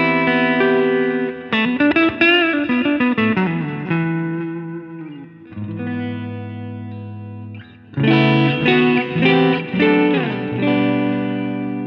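Sterling Majesty X electric guitar played through a clean amp tone on the neck pickup: ringing chords and a quick run of single notes, with a held chord left to ring out. After a short break about eight seconds in, a new clean phrase on both pickups, with descending runs.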